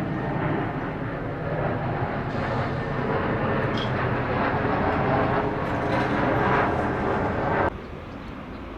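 Steady engine rumble of outdoor traffic noise, which cuts off suddenly near the end.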